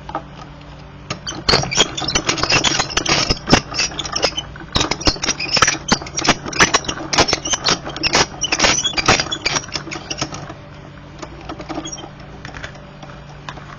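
Die-cutting machine feeding a cutting die and plates through, with a dense run of crackling and clicking that starts about a second and a half in and stops about ten seconds in. A faint steady hum lies underneath.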